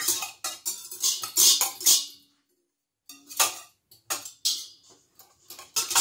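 Wire whisk clinking and scraping against a stainless steel mixing bowl in irregular strokes, dissolving yeast in warm milk, with the bowl ringing briefly after some strikes. The strokes pause for about a second, a little after two seconds in.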